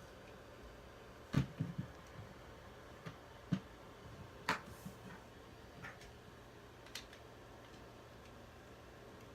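Scattered light clicks and knocks of plastic toy parts being handled, with a short cluster about a second and a half in and single ticks after.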